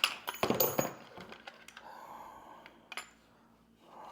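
Small hard parts clinking and clattering as they are handled out of a box: a quick cluster of clicks in the first second, a soft rustle of packing, then one more click near three seconds.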